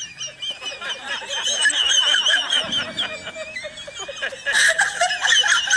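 Laughter: several high-pitched laughing voices overlapping, growing louder near the end.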